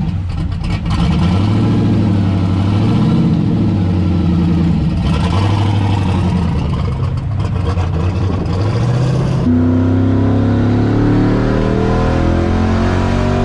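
Turbocharged 5.3-litre V8 running and being revved, its pitch rising and falling; for the last few seconds it holds at a steady speed.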